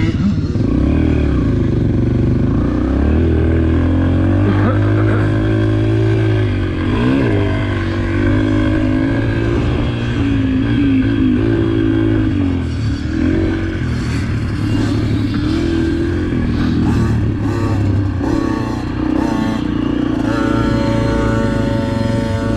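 Dirt bike engine on a motocross track, revving up and falling back again and again as the throttle opens and closes.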